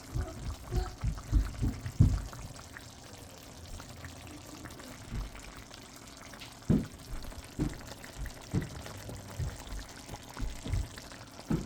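Chicken tagine simmering on low heat: a soft, steady bubbling hiss from the sauce, with several dull low thumps scattered through, the loudest about two seconds in.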